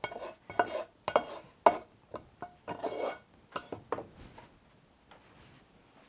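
A cooking utensil scraping and knocking against a pan and bowl as sautéed greens are moved from pan to bowl: a quick, irregular run of clacks and short scrapes that dies away about four seconds in.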